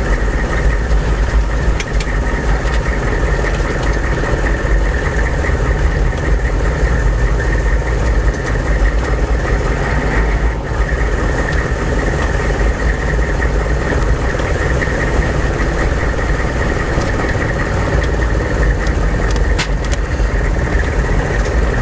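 1998 AM General Hummer's 6.5-litre turbodiesel V8 running at low revs while driving over bumpy ground, with a steady thin whine above the engine rumble and a few brief knocks. The whine is a new fault that follows engine RPM, not steering, and has been getting louder; its cause is unknown.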